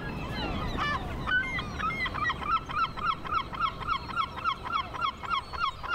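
Herring gull giving its long call: a few longer opening notes, then a fast, even run of repeated yelping notes at about four to five a second. Early in the breeding season this call tells rival males to keep out.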